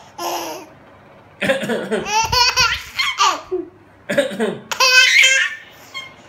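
An adult coughs and an infant answers with a fit of laughter, twice: a short cough, then a run of high-pitched baby laughs lasting a second or two.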